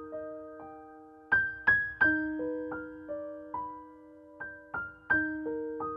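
Background music: solo piano playing slow, gentle broken chords, each struck note ringing on and fading under the next.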